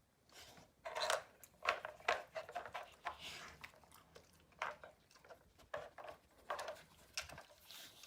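A dog working a Nina Ottosson Dog Hide N' Slide treat puzzle: irregular knocks, clicks and short scrapes as the composite blocks and flaps are pushed and slid, with the dog chewing treats in between.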